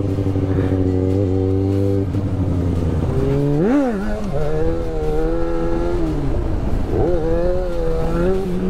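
Yamaha XJ6's 600 cc inline-four engine running under a rider, revved sharply about three and a half seconds in and again near seven seconds, each rev rising and falling quickly, with steadier running between.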